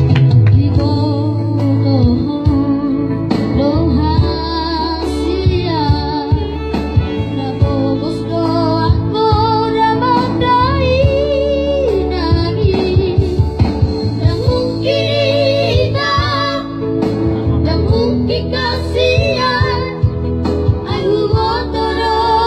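A child singing a song over instrumental backing, with vibrato on long held notes.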